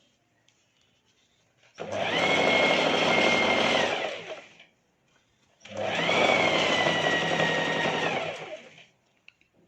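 Sewing machine stitching in two short runs of about three seconds each, with a pause between them, the motor whine sagging as each run slows to a stop. It is sewing down a folded slit hem a little at a time.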